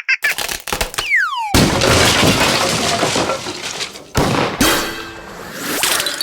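Cartoon sound effects: a few quick clicks, a short falling whistle, then a loud crash of breaking glass that rings on and fades over about two seconds, followed by another sharp hit.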